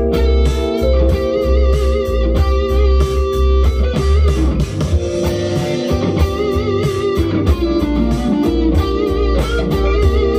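Epiphone SG electric guitar playing lead lines over a funk backing track with drums and bass. Several held notes waver with vibrato.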